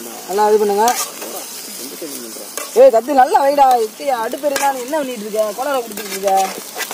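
A slotted metal ladle stirring chicken pieces in a metal pot of frying oil, onion and tomato, scraping around the pot over a steady sizzle. The scraping brings repeated wavering squeals, loudest about three seconds in.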